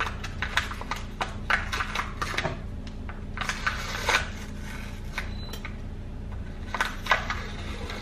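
Light clicks and taps of a Hershey's cocoa powder container being opened and handled, in small clusters, the sharpest about seven seconds in, over a steady low hum.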